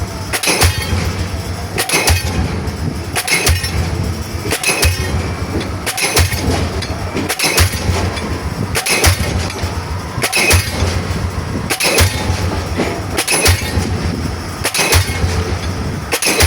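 Diesel pile hammer driving a pile: a sharp, ringing blow about every one and a half seconds in a steady rhythm, with a low hum between the blows.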